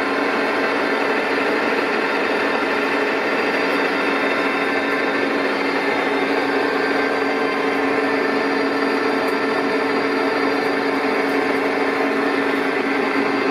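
Colchester Triumph 2000 lathe running steadily while it turns a long steel shaft held in a fixed steady: an even mechanical whine made of several steady tones, unbroken throughout.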